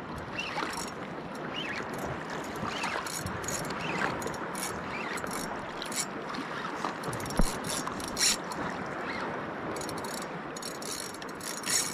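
Spinning reel being wound and clicking under load while fighting a hooked giant trevally on a hard-bent rod, with faint sweeps about once a second over a steady hiss of wind and sea.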